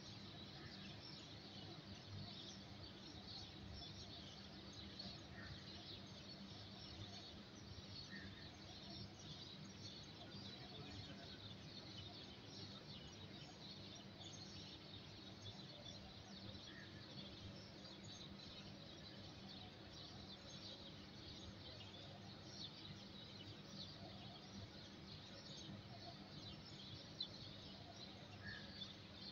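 Faint chirping of many small birds over a steady low background noise.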